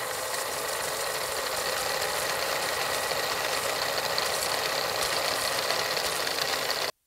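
Film projector sound effect: a steady mechanical whirr and clatter of a running projector, cutting off suddenly near the end.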